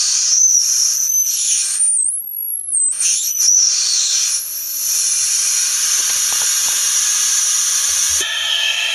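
Homemade transformer-and-Darlington oscillator making its shrill, noisy 'scream': high tones over a hiss, wandering up and down in pitch as the potentiometer is turned. About two seconds in it narrows to a single very high steady tone for about a second, then breaks back into the scream, which turns noisier and spreads lower near the end.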